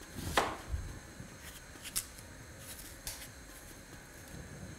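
Chef's knife cutting peeled apple into thin pieces: a few scattered crisp cuts and light knocks of the blade on a cutting board, the strongest about half a second in.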